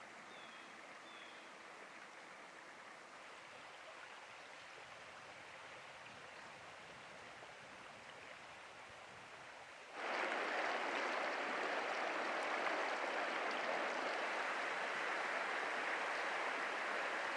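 Flowing river water: a faint, steady rush that jumps sharply louder about ten seconds in and stays there, as of fast shallow water running over rocks.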